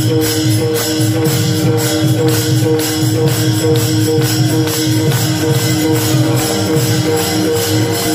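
Many taal, small brass hand cymbals, struck together in unison in a steady rhythm of about three clashes a second, over a mridang drum and steady held notes in a Warkari bhajan interlude without singing.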